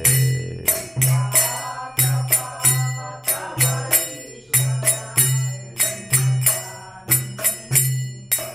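Kirtan accompaniment between sung verses: small hand cymbals struck in a steady repeating rhythm over pulsing low drum strokes and a sustained melody line.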